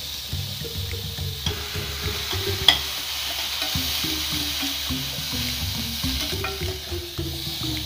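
Diced carrots and green beans sizzling in oil in a pan as a spatula stirs them, with clicks of the spatula against the pan. The sharpest click comes a little under three seconds in.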